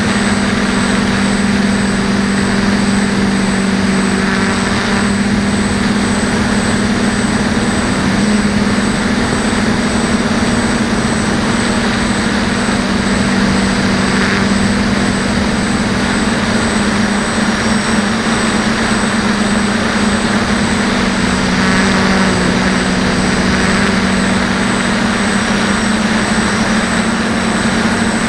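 DJI F450 quadcopter's four electric motors and propellers humming steadily in flight, heard close from the camera mounted on the frame, with a thin high whine above. The hum's pitch shifts slightly a few times as the throttle changes.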